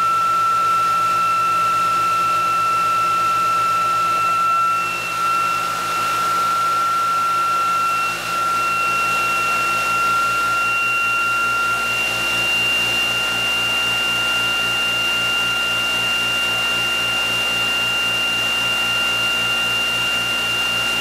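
Electric motor and generator test rig running: a steady high whine with a second tone above it, rising slightly in pitch over the first dozen seconds as the system speeds up, over a low, even hum.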